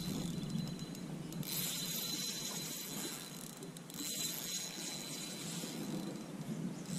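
Spinning reel's drag clicking in a fast ratchet as a big smallmouth bass pulls line off against a loosely set drag on light line. It comes in two runs, with a short break about four seconds in.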